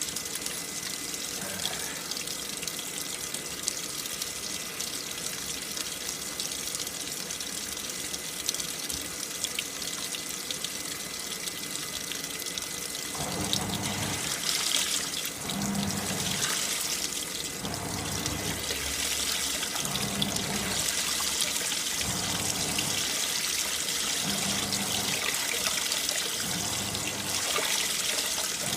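AQUA MCW-C50 coin-operated washing machine in its fill rinse: water runs steadily into the tub, and about halfway through the pulsator starts agitating, sloshing the water in surges every second or two.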